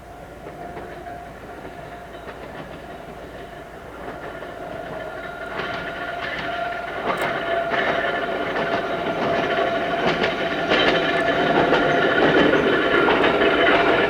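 An Ohmi Railway electric train approaching and drawing near, its running noise growing steadily louder, with a steady whine throughout. Wheel clicks over rail joints join in from about halfway.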